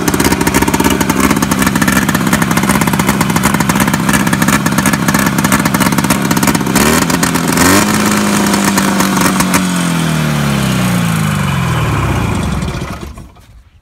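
1974 Polaris Electra snowmobile's 340 cc two-cylinder two-stroke engine running steadily. It revs briefly about seven seconds in, then winds down and stops near the end.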